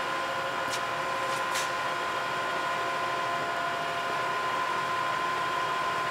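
Fortworth CS-VBM-5VL bed-type milling machine running at a steady speed: an even mechanical hum with a steady high whine that holds one pitch.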